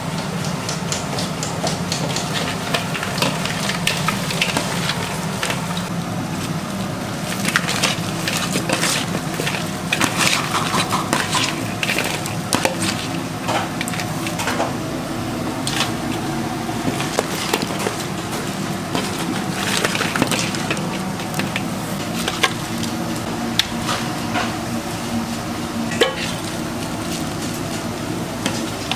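Cut raw crabs being tossed and rubbed with thick chili seasoning by a gloved hand in a metal bowl: shells clicking and crackling against each other and the bowl, with wet squelches. A steady low hum runs underneath.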